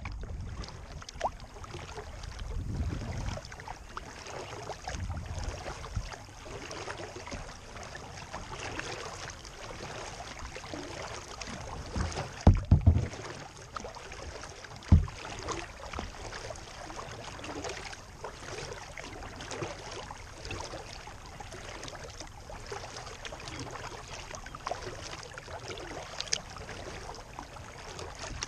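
Small waves lapping and splashing against a kayak's hull, with some wind on the microphone. A few dull low thumps come about halfway through.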